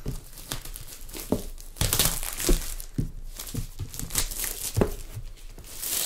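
Cardboard packaging being opened by hand: crinkling and rustling with a few tearing sounds and scattered taps and knocks at an uneven pace.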